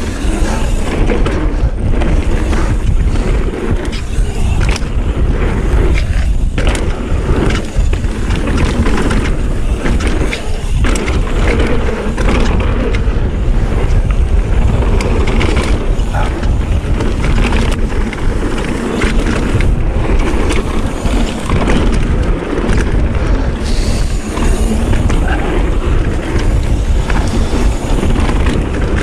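Mountain bike descending a packed-dirt trail at speed: knobby tyres rolling on dirt and the bike rattling over small bumps, with a steady low rush of wind on the microphone.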